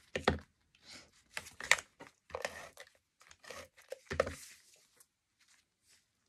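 Paper and cardstock being handled on a craft table: a series of short rustling, scraping strokes, some with a soft knock, dying away near the end.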